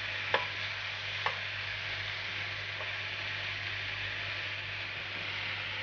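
Minced meat with corn and red kidney beans sizzling in a frying pan as it is stirred with a spatula, the spatula knocking lightly against the pan twice in the first second and a half.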